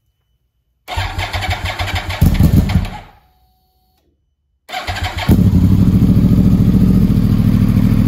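Cold start of a 2012 Yamaha R1's crossplane inline-four through an Akrapovic exhaust. The starter cranks for about a second and the engine briefly catches, then fades out when the starter is let off. After a pause of over a second it cranks again and fires about five seconds in, settling into a steady idle. The owner takes the quick, easy start as the sign that cleaning the corroded starter solenoid has cured its hard cold starts.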